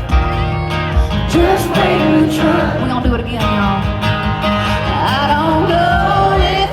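Live country music played loud through a concert sound system: a band with guitar and a steady drum beat, and a voice singing over it.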